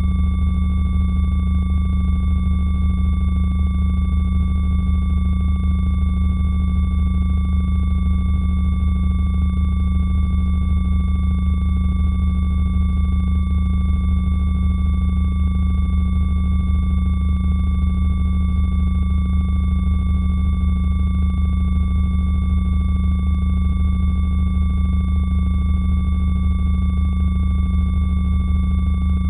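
A sonified space recording: radio emissions picked up by a spacecraft instrument and turned into sound, heard as a deep, steady drone with a few thin high tones held above it, never changing.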